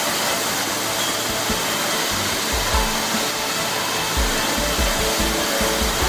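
Industrial glass bottle washing machine running: a steady, loud hiss and whir of air and machinery.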